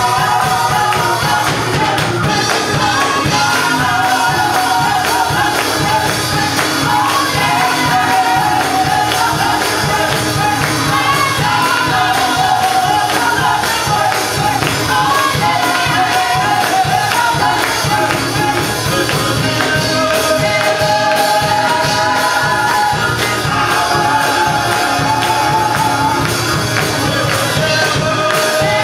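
Group of women singing an upbeat gospel song together, with hand clapping over a steady, driving beat.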